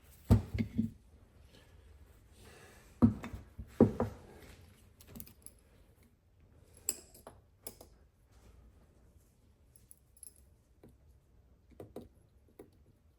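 Small metal parts of a Zenith 63 carburetor and hand tools clinking and knocking on a workbench as it is taken apart. A cluster of knocks comes in the first second and two louder ones about three and four seconds in, then lighter scattered clicks.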